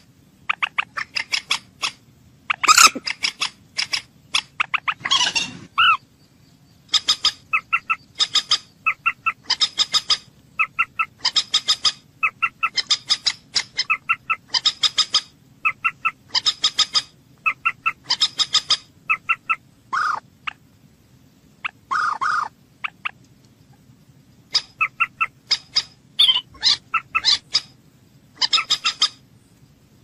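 Common moorhen calling: short, sharp notes repeated in quick runs of several at a time, over and over, with a few longer calls in between.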